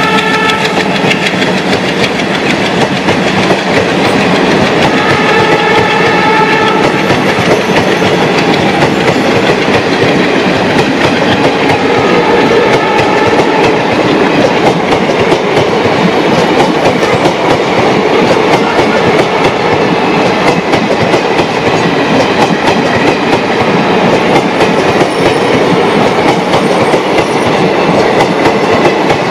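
Express passenger coaches rolling past with wheels clattering over rail joints, behind twin WDM-3A ALCo diesel locomotives pulling away. A horn sounds at the start and twice more, fainter, a few seconds apart.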